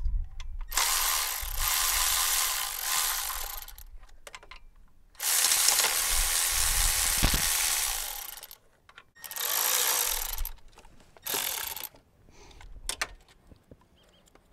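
Cordless electric ratchet running in four bursts, the first two about three seconds each and the last two shorter, as it backs off the 10 mm nuts holding a Toyota V6 thermostat housing.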